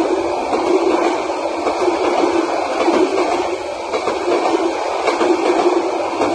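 Bangladesh Railway intercity passenger coaches rolling past on the adjacent track: a steady rumble of wheels on the rails with a continuous fine clatter.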